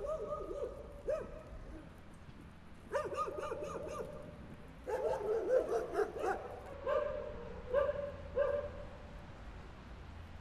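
Dog barking in four bouts of quick, repeated barks, with pauses between them.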